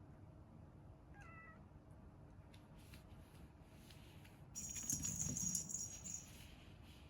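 Kitten meowing: a faint short meow about a second in, then a louder, high-pitched cry lasting about a second and a half past the middle.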